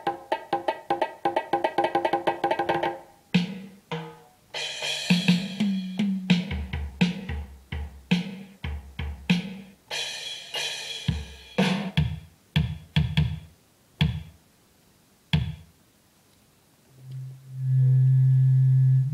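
Electronic home keyboard played in its drum-kit sounds by children's fingers: a fast run of drum hits for about three seconds, then irregular, separate drum hits that thin out and stop. Near the end a steady, held low note starts.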